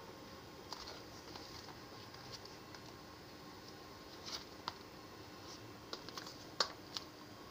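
Faint, scattered clicks of block-heeled mules tapping on a tiled floor as the wearer steps about, with two sharper taps near the end.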